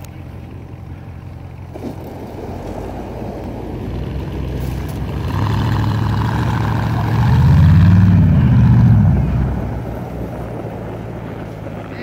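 Engines of a farm tractor and the pickup it is towing through deep snow on a tow strap, growing louder as the vehicles pull past. Past the middle an engine revs up and back down in pitch for about two seconds, then the sound eases off.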